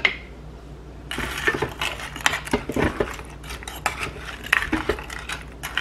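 Wooden spoon stirring broth and chopped vegetables in a ceramic slow-cooker crock, with irregular knocks and scrapes against the crock starting about a second in.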